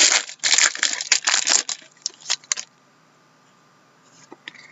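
Plastic trading-card packaging crinkling and rustling in quick bursts for the first two and a half seconds, then quiet apart from a couple of faint handling clicks near the end.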